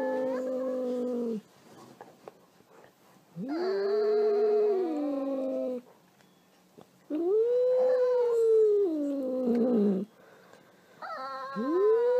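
A pet's long, drawn-out howls: four calls of two to three seconds each, rising at the start and sliding down at the end, with short pauses between. The first is already under way and the last runs on past the end.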